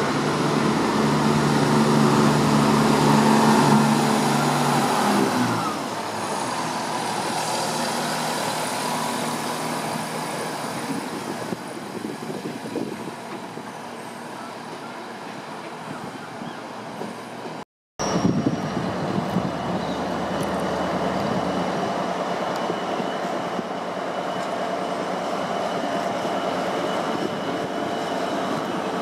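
Diesel trains in a station. For the first few seconds a diesel engine runs hard with a strong, steady note, then eases off about five seconds in to a quieter rumble as a Class 170 diesel multiple unit draws into the platform. After a cut about 18 seconds in, diesel engines run steadily from a Class 66 locomotive and an HST power car standing at the platforms.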